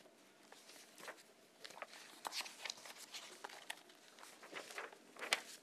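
Quiet room with scattered short rustles and clicks of paper being handled.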